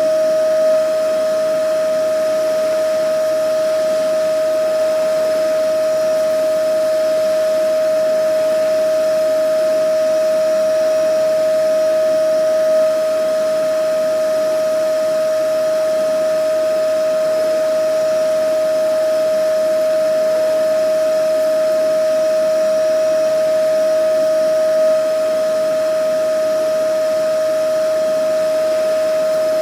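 Vacuum cleaner running steadily: an even, unchanging motor whine over a rush of air, with a slight swell in loudness about every twelve seconds.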